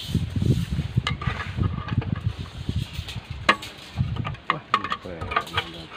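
Steel rebar being bent by hand into a stirrup on a nailed wooden jig with a hand bending bar: sharp metal clicks and clinks as the bar and rod bear on the nails, mixed with dull knocks.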